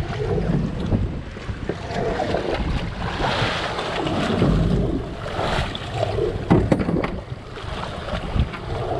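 Strong wind buffeting the microphone over the wash of choppy water churning around a small boat's stern, with a few sharp knocks about six seconds in.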